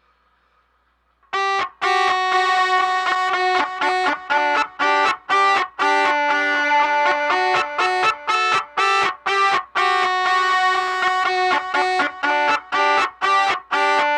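Isolated pianica (melodica) track with a delay effect, playing a melody of short, rhythmically repeated notes with echoes. It comes in about a second and a half in, after near silence.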